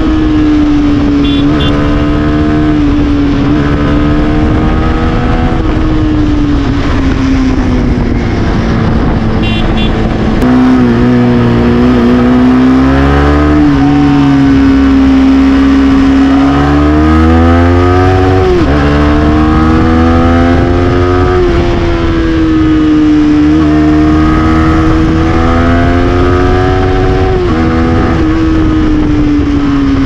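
Yamaha MT-15's 155 cc single-cylinder engine running under way, heard from the rider's position. Its pitch rises and falls repeatedly as the throttle opens and closes, over a steady rush of wind.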